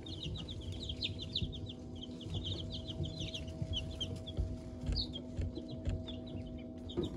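Newly hatched chicks peeping in a brooder: many short, high peeps overlapping. They are busiest in the first few seconds and thin out later, over a steady low hum.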